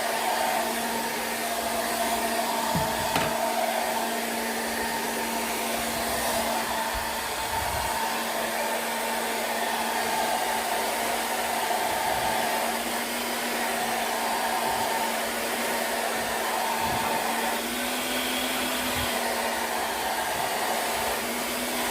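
JML Salon Pro hair dryer running steadily while blow-drying hair: a constant rush of air over a steady motor hum, with a few brief low thuds.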